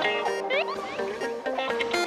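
Instrumental background music led by guitar, with a few notes bending in pitch about half a second in.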